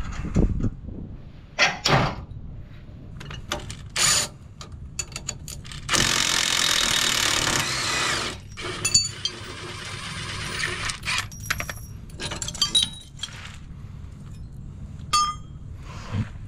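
Cordless impact wrench running in one loud burst of about two seconds, about six seconds in, backing out a bolt on a boat trailer's rusted leaf spring. Around it, steel clanks and clinks as the spring, bolts and washers are handled.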